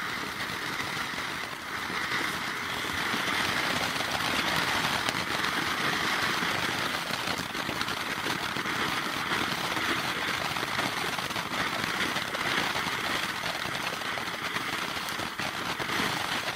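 Ground firework fountain burning with a steady, loud spraying hiss and dense fine crackle as it throws sparks and flame.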